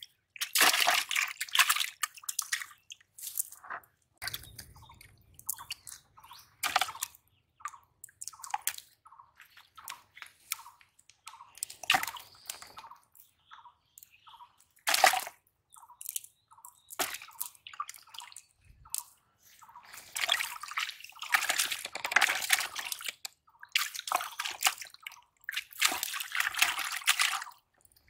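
Live fish thrashing in a plastic bucket of water: irregular splashes and drips, with longer bouts of splashing near the end.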